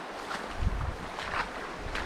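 Fast, high river water rushing, with wind buffeting the microphone and a few short splashes.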